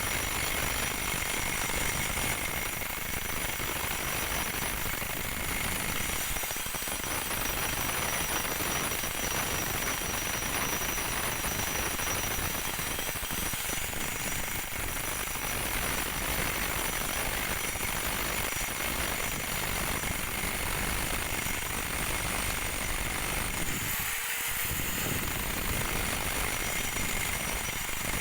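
Handheld electric power tool running continuously: a steady motor whine over a dense, rattling noise that keeps an even level throughout.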